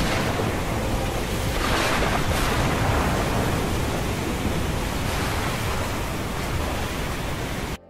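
Heavy thunderstorm ambience of pouring rain: a dense, steady rush that swells between about two and three seconds in and cuts off abruptly near the end.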